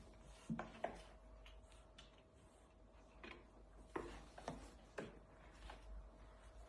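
Scattered light taps and clicks, a few in quick pairs, over a faint steady hum.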